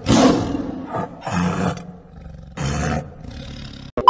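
Rough, roar-like growls in four short bursts, each about half a second long.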